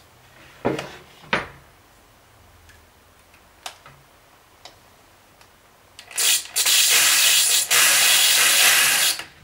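Corded electric drill driving a number 6 pan-head metal screw into wood, running for about three seconds near the end with a short break just after it starts. A couple of light knocks from handling the drill and screw about a second in.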